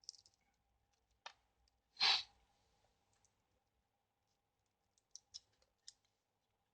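Small clicks and snips of the leftover tape and wire being cut off a hand-made cable, with one louder short rasp about two seconds in and a few light ticks near the end.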